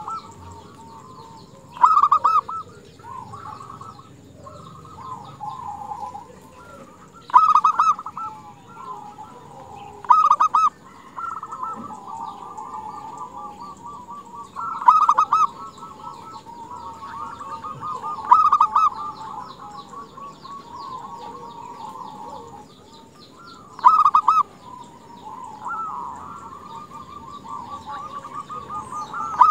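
Female zebra dove (perkutut) calling: long runs of rapid, trilled cooing notes, broken every few seconds by a louder burst, six in all.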